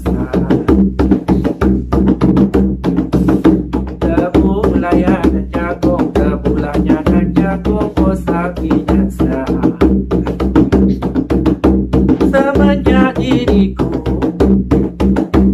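Gendang hand drum struck with the bare hands in a quick, steady rhythm, accompanying a mukun song, with a woman's voice singing drawn-out wavering phrases over it at times.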